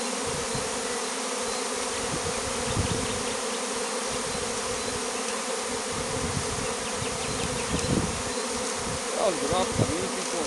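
Honeybee swarm buzzing: the steady, dense hum of many bees flying around the cluster, with a couple of louder, wavering buzzes near the end.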